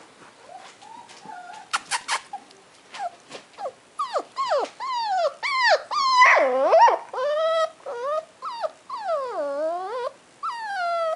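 Toy poodle puppy whining and whimpering: a run of high-pitched cries that slide down and back up in pitch, coming thick and fast from about four seconds in, after a few sharp clicks.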